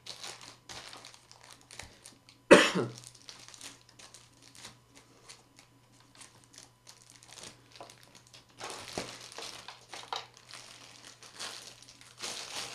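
Packaging crinkling and rustling with small clicks as a keyboard and its cable are handled and pulled free. A single loud cough comes about two and a half seconds in.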